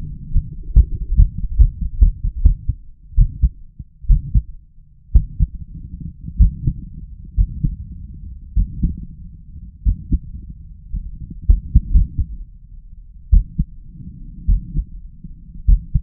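A man's heart heard at the chest, beating forcefully in an uneven rhythm: quick beats at first, then a pause of nearly a second about four to five seconds in before the thumps resume. These are the pauses and arrhythmic beats brought on by chest-vacuum manoeuvres.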